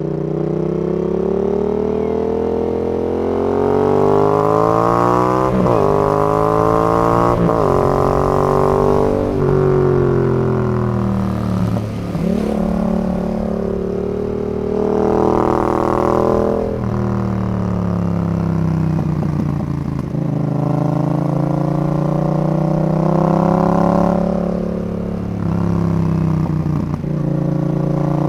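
Yamaha XSR 700's parallel-twin engine through a Zard full exhaust, riding and pulling through the gears: the exhaust note climbs in pitch and drops sharply at each upshift, several times, with a couple of slower falls as the throttle is eased off.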